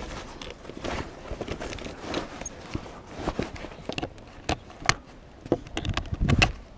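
Rope and sailcloth rustling as mainsail lines are handled, then a run of sharp metal clicks and taps from pliers working a shackle pin, several in the last few seconds.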